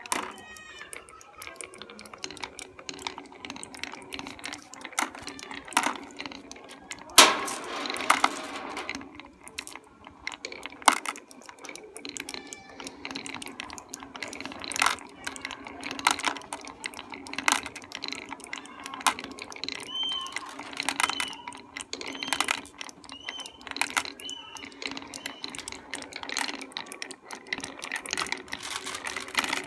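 Glass marbles rolling down a cardboard chute with wooden sides, clicking and clacking against the angled coloured sticks and against each other over a steady rolling rumble, with a loud clack about seven seconds in. Marbles also clink as they drop into a plastic toy dump truck's bed.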